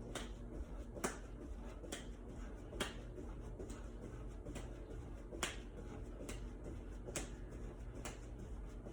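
Hand claps from seal jacks, sharp and even, a little under one a second.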